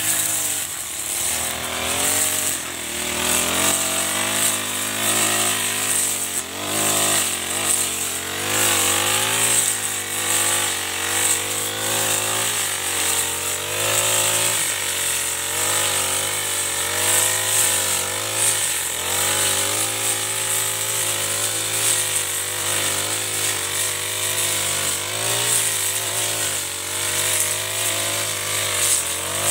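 Chinese-made Honda four-stroke backpack brush cutter running under load while cutting tall grass. Its engine pitch keeps rising and dipping as the cutter bites into the grass and frees up.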